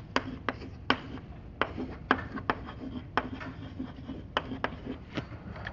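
Chalk on a chalkboard as someone writes: an irregular run of sharp chalk taps with light scratching between them.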